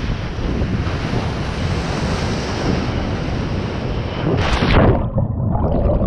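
Surf water sloshing around a camera at the surface, with wind buffeting the microphone. About four and a half seconds in, a loud splash comes as the camera is dunked, and the sound turns muffled and bubbly underwater.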